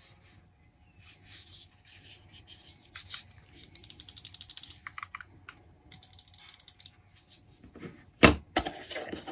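Handling noise from a small plastic wireless gaming mouse and its box: scattered light clicks and rattles, with a quick run of clicks a few seconds in, then a sharp knock near the end as the box's moulded tray is handled.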